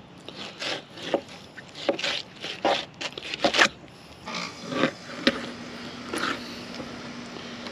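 Fillet knife scraping and slicing against a plastic cooler lid in a quick run of short, irregular strokes as a remora fillet is trimmed and skinned, easing off after about four seconds.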